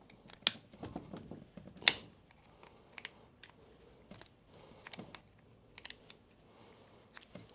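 Small screwdriver tightening the wire terminal screws on a replacement drill trigger switch: scattered light clicks and scrapes of metal on plastic, the sharpest about half a second and about two seconds in.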